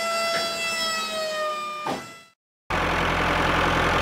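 Small electric motor whining at a steady high pitch; about a second and a half in the pitch slides lower and the whine fades out. After a short silence a loud, rough, even motor-like running noise starts.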